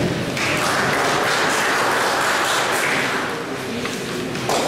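Spectators applauding: a dense patter of clapping that swells and then fades over about three seconds.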